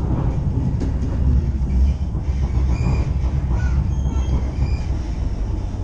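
A rail carriage running along the track, heard from inside: a steady low rumble of wheels on rails, with a few faint, brief high squeals.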